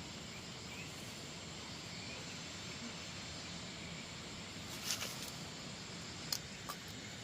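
Steady outdoor background hiss with a few short clicks, about five seconds in and twice more near six and a half seconds.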